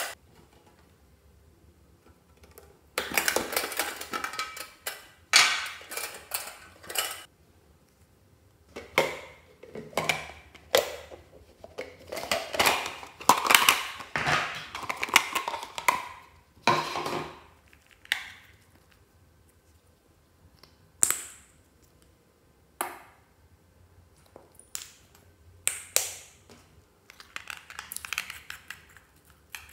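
Hands handling small plastic and glass items, a plastic bowl, a nail polish bottle and tubes, over a glass dish of slime: a series of separate clatters, taps and rustles with quiet gaps between them.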